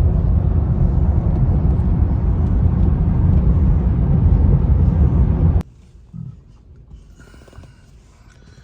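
Road and engine rumble inside a moving car, a steady low drone that cuts off suddenly about two-thirds of the way through. A much quieter background follows, with faint high tones.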